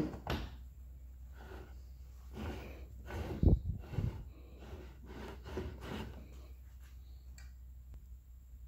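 Clear plastic tube being handled and slid over a metal table-saw top against a jig: irregular rubbing and scraping, with one sharp knock about three and a half seconds in, over a low steady hum.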